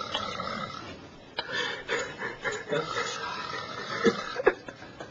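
A sleeping man snoring, the noisy breaths carrying a thin whistling note in two stretches, with a few sharp clicks in the second half.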